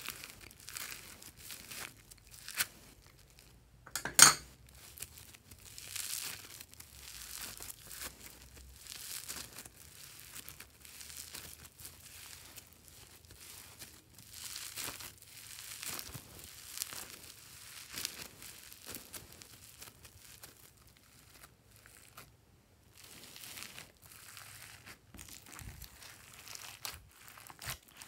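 Foam-bead slime (floam) crackling and crunching as hands squeeze and knead it, a dense irregular crinkle of tiny beads. One louder sharp click stands out about four seconds in.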